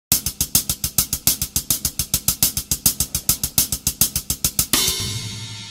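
Intro music: a rapid, steady drum beat that ends about four and a half seconds in on one big crash, which rings out and slowly fades.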